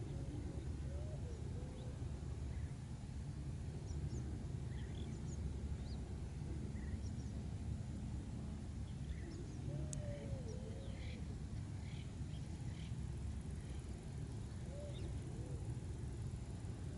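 Faint, scattered wild bird calls, short high chirps and a few lower curving calls, over a steady low background rumble, with one sharp click about ten seconds in.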